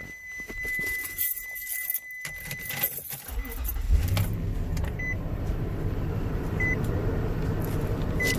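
Keys jingling and clicks under a steady high warning tone from the dash. About three seconds in, the 2005 Nissan Armada's 5.6-litre V8 starts and runs at a steady idle, with a few short beeps over it.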